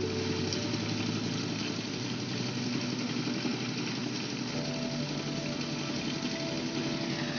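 A heavy road-building machine's diesel engine running steadily, with background music of held notes that shift pitch a few times.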